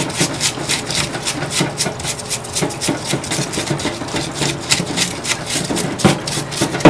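Stiff solvent-tank brush scrubbing a RedMax backpack blower's engine bottom end in solvent, in quick back-and-forth strokes, several a second.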